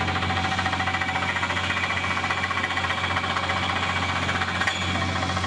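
Water well drilling rig and its air compressor running steadily, a continuous engine sound with a fast knocking rhythm. A single sharper knock comes near the end.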